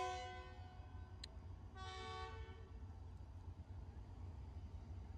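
Diesel locomotive horn signalling the train's departure. A long blast ends as the sound opens and fades away, then a shorter, fainter toot comes about two seconds in, over a low steady rumble.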